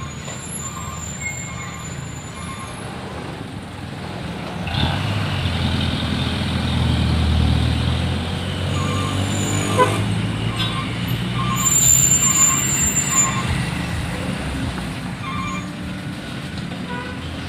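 Heavy trucks passing on the road with their engines running; one loud truck pass builds from about five seconds in and fades near the end, with a brief high squeal about twelve seconds in.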